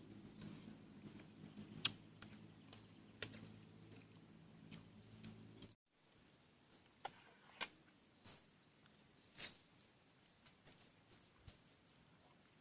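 Near silence: faint outdoor ambience with a low hum in the first half and a few scattered faint ticks and chirps, with two brief dropouts where the clip is cut.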